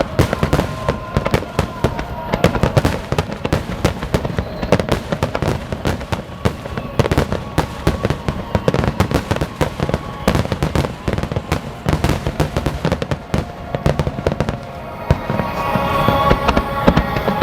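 A large fireworks display firing rapid, dense bangs and crackle, with the show's accompanying music playing underneath. About fifteen seconds in, the bursts thin out and the music comes forward.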